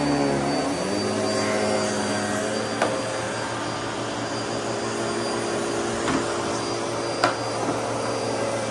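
Upright vacuum cleaner running over carpet, its motor hum shifting in tone about a second in and then holding steady. A few sharp crunches of debris being sucked up cut through it, the loudest near the end.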